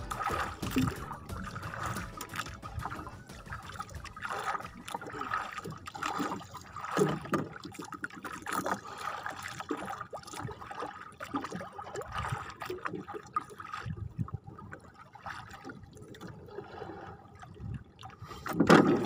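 Sea water sloshing and trickling against the side of a small outrigger boat as a fishing handline is hauled in by hand over the gunwale, with small irregular splashes and one brief louder burst near the end.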